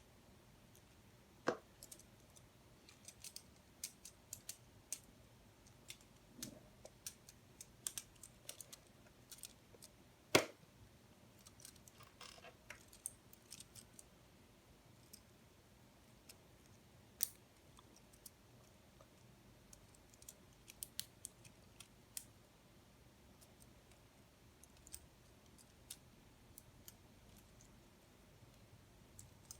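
Plastic LEGO Technic pieces being handled and pressed together: faint, irregular sharp clicks and small knocks, with one louder click about ten seconds in.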